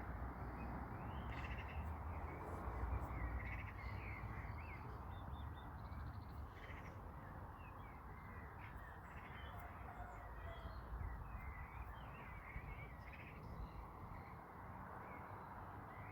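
A crow cawing among scattered chirps from other birds, over steady outdoor background noise and a low rumble.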